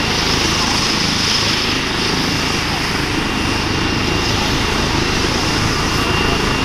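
Airbus EC135 P2+ helicopter's twin Pratt & Whitney Canada PW206B turboshaft engines and main rotor running steadily on the ground before lift-off, with a steady high turbine whine over the rotor noise.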